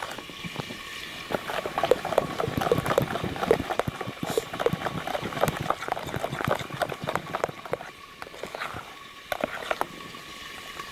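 Cake batter being beaten by hand in a bowl: quick, irregular clacks of the utensil against the bowl.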